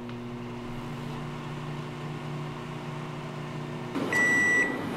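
Steady low electric hum that cuts off abruptly about four seconds in, followed by a loud, high electronic beep lasting about half a second.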